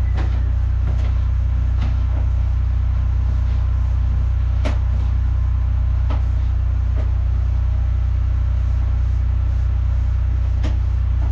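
High-pressure drain jetter's engine running at a steady low drone, with a few sharp clicks or knocks over it.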